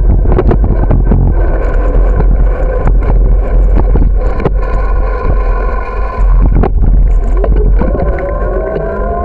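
A bicycle rolling over concrete sidewalk and asphalt, with a steady low rumble and frequent knocks and rattles as it goes over bumps and cracks, and wind buffeting the microphone. A whining hum runs underneath and rises in pitch near the end.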